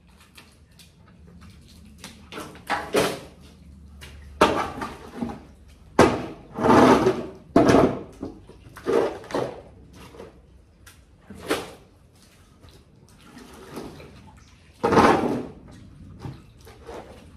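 Metal shovel scraping and shoving wet muck and water across a concrete shed floor, in about ten uneven slushy strokes with short pauses between them.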